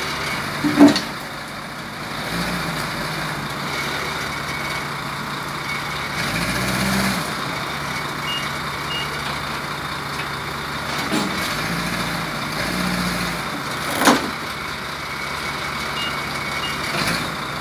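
Heavy vehicle engine running steadily at low revs while an AMX-13 tank is unloaded, with two loud sharp knocks, one about a second in and one near 14 seconds. Pairs of short high beeps sound twice, around the middle and near the end.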